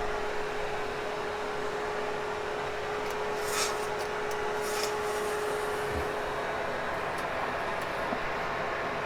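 Hoover Hushtone upright vacuum running steadily with a constant whine, with two brief hissing rustles about three and a half and five seconds in.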